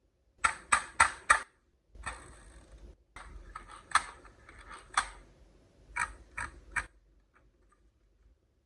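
Glass marbles running down a wooden HABA marble run: a quick series of four sharp clacks, then a stretch of rolling rumble with clicks as they travel along the track, and three more clacks near the end.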